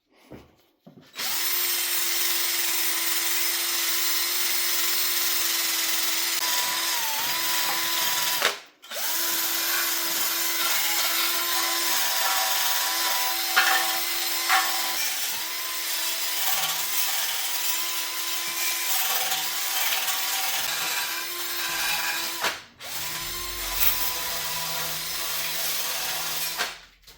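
Power drill running a wire brush against the steel rear subframe of a Mini Cooper R56, scrubbing off rust and dirt before painting: a steady motor whine with scraping hiss. It runs in three long stretches with two brief stops.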